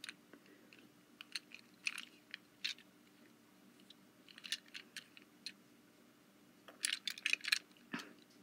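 Faint scattered clicks and light taps of a die-cast metal toy engine being turned over in the fingers, with a quick run of clicks about seven seconds in, over a faint steady hum.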